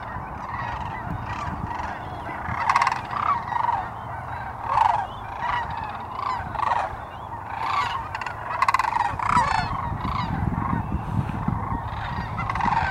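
A large flock of sandhill cranes calling, many overlapping calls repeated throughout, with a low rumble underneath that grows stronger near the end.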